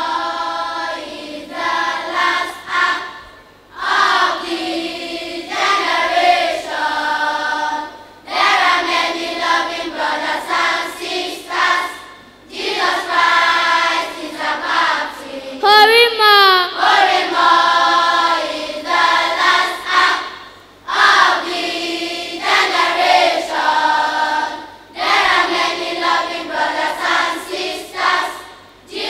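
Children's choir singing a gospel song, in phrases a few seconds long with short breaks between them.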